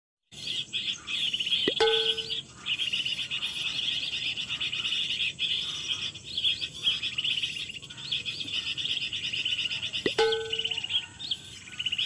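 Many small birds chirping and twittering in a dense, steady chorus. Twice, about two seconds in and again near the end, a sharp click is followed by a brief clear tone.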